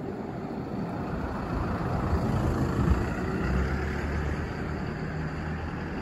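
Low rumble of a motor vehicle passing, swelling through the middle and easing off near the end.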